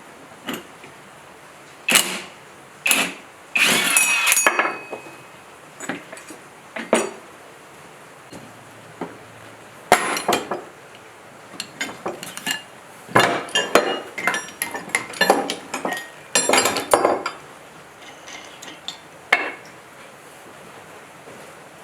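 Metal tools and engine parts clinking and knocking during a generator teardown, an irregular string of sharp clanks, a few with a brief metallic ring, coming in clusters.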